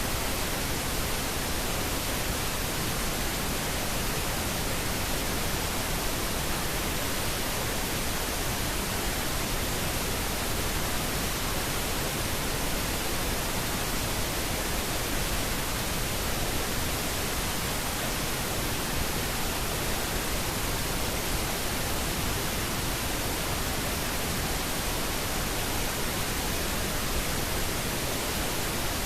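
Steady white-noise static hiss, even and unchanging, used to mask subliminal spoken affirmations that cannot be heard as words.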